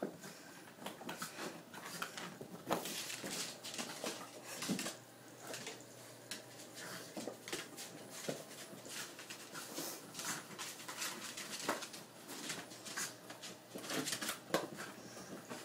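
A West Highland white terrier playing with a toy ball on carpet and tile: irregular clicks, taps and scuffs come in busy flurries as she chases and noses it.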